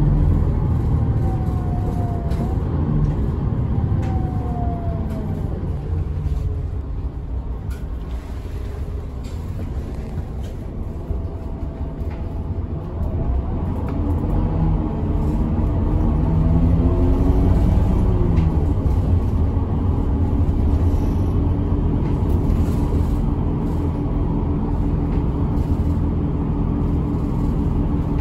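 Route bus's diesel engine and road noise heard from inside the cabin. The engine note drops over the first few seconds, then climbs and grows louder from about halfway as the bus gathers speed again.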